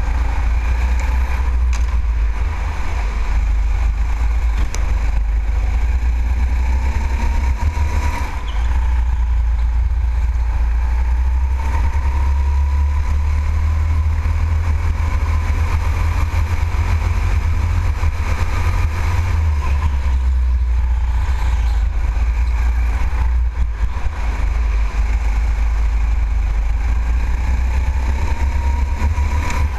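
Onboard sound of a go-kart at racing speed: a heavy low rumble of wind buffeting the camera microphone, with a faint whine from the kart that rises and falls in pitch with speed through the corners.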